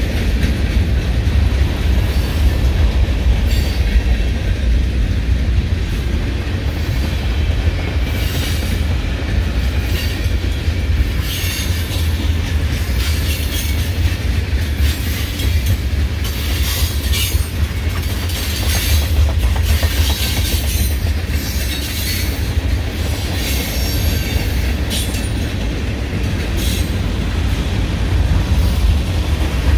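Norfolk Southern manifest freight train's cars rolling past: a steady low rumble of wheels on rail, broken by repeated short high-pitched wheel squeals.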